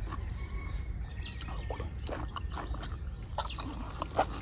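Small birds chirping on and off, with a wet bite into a ripe mango close to the microphone about four seconds in.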